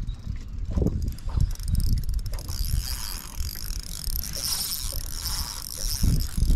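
Fishing reel being wound in, retrieving the lure after a cast, with a steady mechanical whir. Low thumps and rumble sound underneath.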